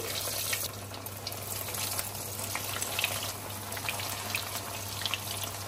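Breadcrumb-coated bread rolls deep-frying in hot oil in a pan: a steady sizzling hiss with scattered small crackles.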